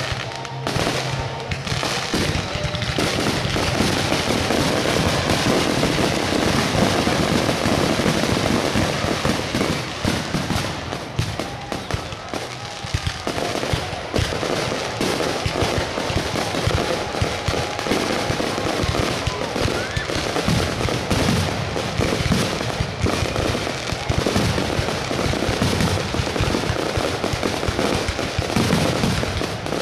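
Fireworks grand finale: aerial shells bursting in a dense, continuous barrage of rapid overlapping bangs, growing fuller a few seconds in.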